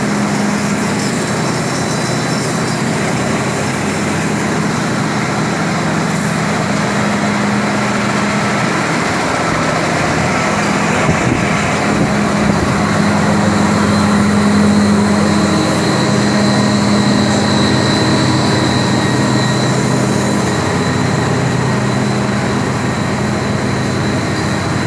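Wire-making machine running steadily: a loud, continuous low mechanical hum with a thin high whine over it.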